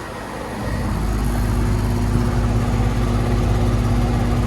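2003 Goodman CKL 2.5-ton air conditioner condensing unit running steadily: the Tecumseh reciprocating compressor and the condenser fan make a low, even hum with a faint steady tone over it. The hum grows louder about half a second in.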